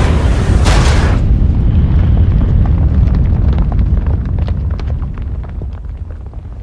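Film sound effect of a giant robot blowing itself up: a heavy blast in the first second or so, then a deep rumble with scattered crackles of debris that slowly fades.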